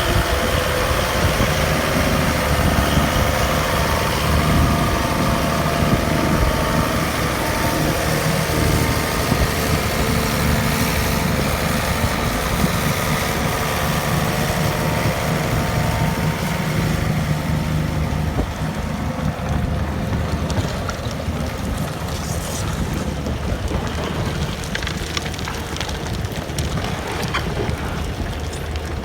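Fendt 924 Vario tractor's diesel engine running steadily under heavy load, pulling a deep plough through heavy clay. It grows somewhat fainter in the last third, with wind buffeting the microphone.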